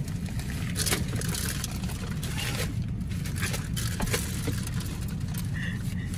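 Brown paper feed bag crinkling and rustling in short irregular bursts as a Texas Longhorn noses into it and eats from it, over a steady low rumble from the vehicle.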